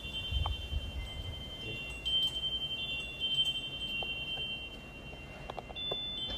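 High metallic chiming: several clear ringing tones at different pitches overlap, each starting and fading in turn, with a few light taps near the end.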